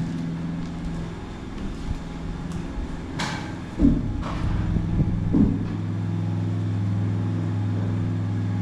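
A steady low motor hum, with a short hiss about three seconds in and a couple of knocks or thuds around four to five seconds in.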